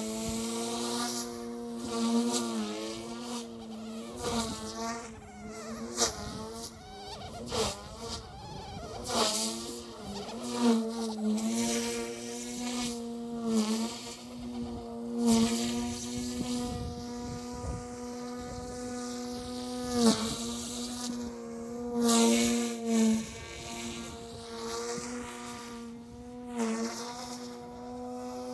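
OMP M2 V2 electric RC helicopter in flight: a steady buzzing whine of motor and rotor blades, its pitch dipping briefly and recovering again and again as the rotor is loaded, with irregular louder swells.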